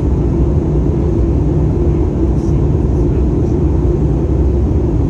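Steady jet-engine and airflow rumble inside the cabin of an Airbus A320-family airliner in flight, with a constant low hum under an even roar.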